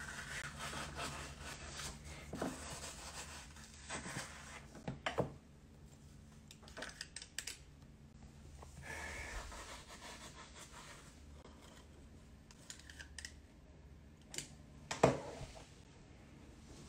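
Metal ice cream scoop scraping through frozen mango sorbet in a metal pan, with scattered clicks and taps as it is worked and emptied, and a louder knock about fifteen seconds in.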